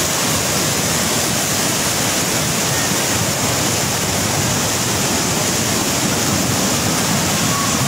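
Muddy floodwater rushing in a flash flood: a steady, loud rush of water with no breaks.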